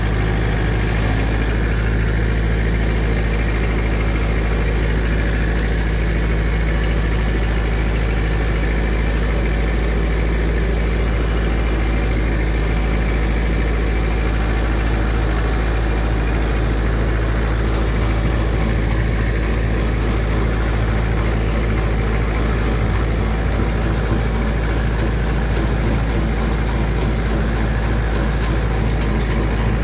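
Diesel tractor engine and the tow-behind compost windrow turner it drives running together in a steady, unchanging drone, with the turner's rotor churning through compost.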